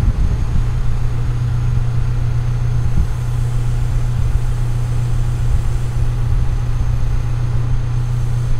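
Mobile crane's engine running at a steady speed, a constant low drone that does not change pitch while it powers the lift.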